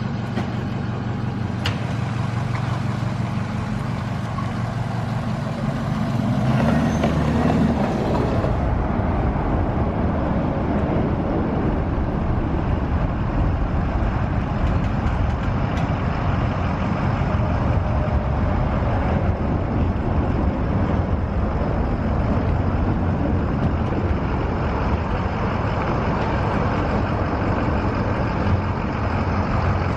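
Steady running noise of a motor vehicle, with a low rumble. The sound changes abruptly about eight seconds in and then holds steady.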